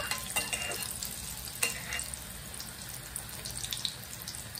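Spring rolls sizzling and crackling as they fry in hot oil in a metal kadai. A metal spoon clicks lightly against the pan a couple of times as the rolls are turned.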